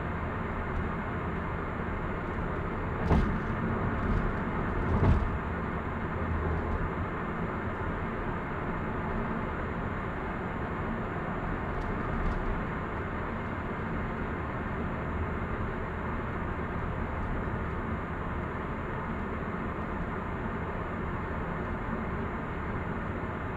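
Steady cabin noise of a Hyundai Avante AD (Elantra) at expressway speed: tyre and road roar with a low engine hum. Two sharp thumps come about three and five seconds in.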